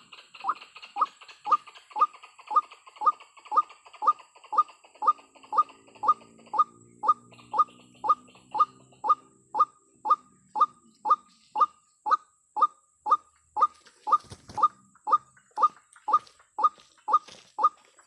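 White-breasted waterhen (ruak-ruak) call: a short falling note repeated steadily about twice a second, the female's call that draws males. A brief rustle about fourteen seconds in.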